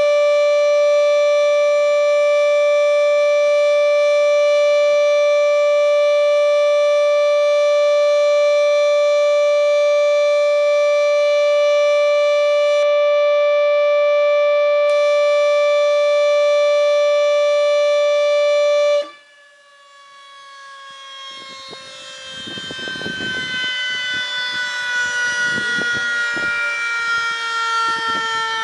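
Civil defense siren sounding the memorial signal for a moment of silent prayer, holding one loud, steady tone. About two-thirds of the way through the tone breaks off suddenly and gives way to a wail that slowly falls in pitch as the siren winds down.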